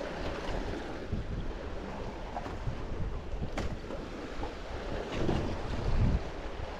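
Wind buffeting the microphone over a choppy sea, with waves slapping against a small boat's hull and a few faint clicks.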